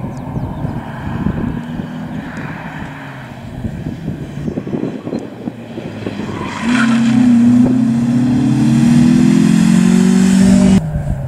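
Opel Kadett E rally car running at speed: a rough, uneven engine rumble at first, then from about two-thirds in a loud, steady engine note rising slowly in pitch as it accelerates past close by, stopping abruptly near the end.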